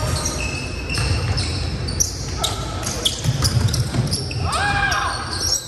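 A basketball being dribbled and bouncing on a hardwood gym floor, with sneakers squeaking sharply on the court as players run and cut.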